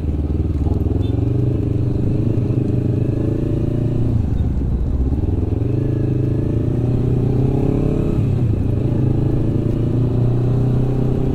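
Honda CBR250RR's tuned two-cylinder engine running as the bike rides along at low speed, its note dipping twice and climbing again.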